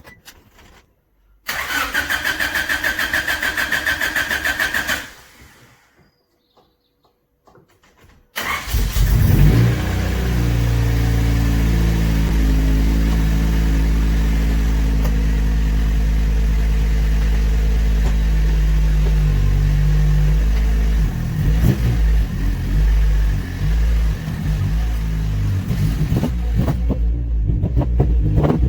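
Honda Civic EG6 starter motor cranking for about three and a half seconds without the engine catching, then a pause, and on the next try about eight seconds in the engine fires and settles into a steady idle. The engine note shifts unevenly for the last several seconds.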